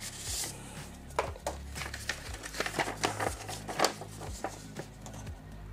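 Paper rustling and crinkling as a folded letter is slid out of a paper envelope and opened out: a string of short, crisp rustles.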